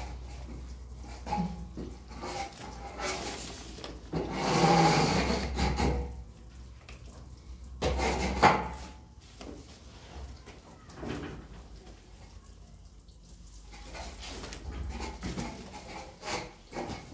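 Wet hands splashing in a basin of water and rubbing the water into white powder spread on a cloth sheet: intermittent rubs, splashes and cloth rustling. There is a louder rustling stretch about four to six seconds in and a sharp knock about eight seconds in.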